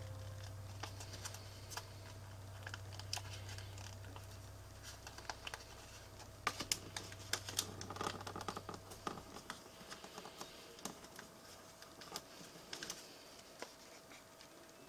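Origami paper being folded and creased by fingers: soft, scattered small clicks and rustles, busiest a little past the middle. A faint low hum underneath stops about two-thirds of the way through.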